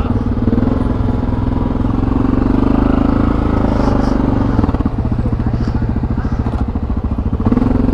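ATV engine running steadily under way. The engine note eases back about halfway through and picks up again near the end.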